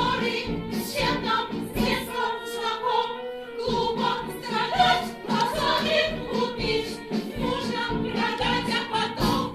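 Music: a group of voices singing over instrumental accompaniment with a steady beat.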